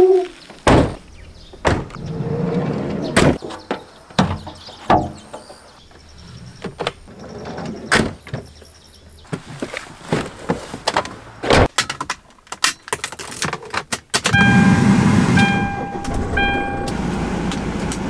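Doors and the tailgate of a Hyundai Starex van being shut and handled, a series of sharp thunks and clunks. About 14 seconds in the engine starts and settles into a steady idle, while a dashboard warning chime beeps several times.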